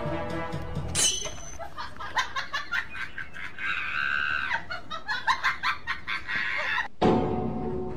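Hen cackling: a run of short clucks around one long drawn-out squawk in the middle.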